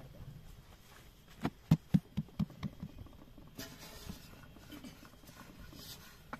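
A quick run of about seven dull thumps, about four a second, starting about a second and a half in, over faint background noise.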